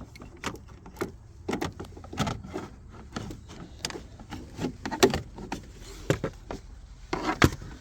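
Plastic interior car trim being worked loose by hand: an irregular run of sharp clicks and knocks, the loudest about five seconds in and again near the end.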